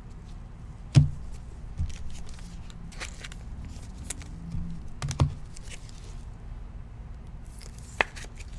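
Trading cards and foil card-pack wrappers being handled on a table: a few sharp knocks and taps, the loudest about a second in and others near two, five and eight seconds, with light clicks and rustling between.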